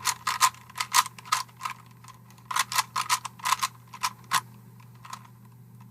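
Plastic Rubik's Cube layers being twisted by hand: quick, irregular clicks in rapid bursts, thinning out to a few near the end.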